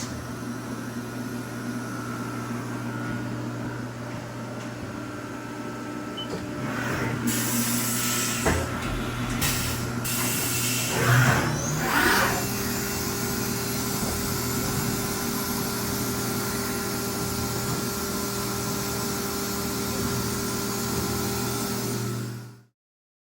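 Haas VF-2SSYT CNC vertical machining centre running with a steady mechanical hum. A few short hissing air blasts come in the middle, and about halfway a rising whine settles into a steady higher tone. The sound cuts off abruptly near the end.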